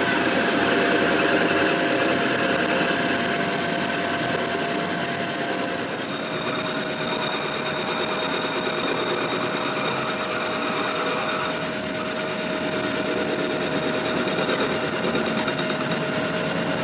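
A workshop machine running steadily with a constant hum. About two seconds in, a high, rapid, evenly pulsing whir joins it and carries on.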